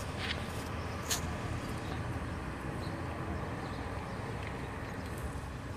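Steady low rumble of outdoor city ambience, with two brief faint high ticks in the first second or so.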